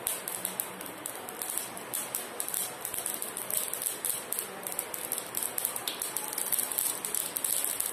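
Mustard seeds popping in hot coconut oil for a tempering, a rapid run of sharp clicks over a sizzle, growing denser and louder toward the end.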